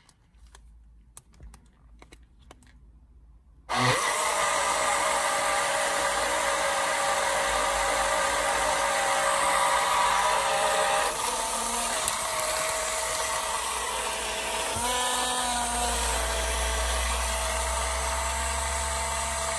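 Small battery-powered portable blender (Hotsch) starting up about four seconds in and running steadily as a further run to finish blending a thick green smoothie, its whir shifting in pitch twice before it stops just before the end. Faint handling clicks come before it starts.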